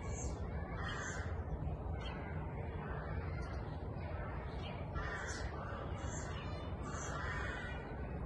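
Outdoor ambience: birds give short calls several times, spaced a second or two apart, over a steady low rumble.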